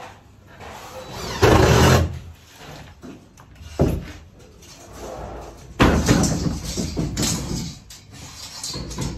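Sheet-metal ductwork being handled and fastened in a stud wall. About a second and a half in there is a loud half-second burst, a sharp knock follows a couple of seconds later, and from about six seconds there is a longer metallic clatter that dies away.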